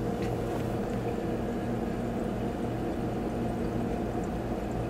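Steady low machine hum with several steady tones, unchanging throughout.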